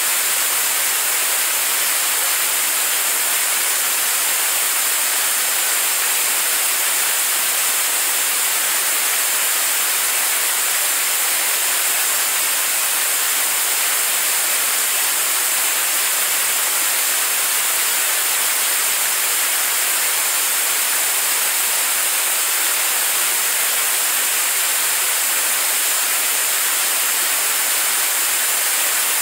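Staged-combustion liquid rocket engine firing steadily on a test stand, in steady-state burn partway through a 600-second firing: an even, unchanging rushing hiss, mostly high-pitched with almost no deep rumble.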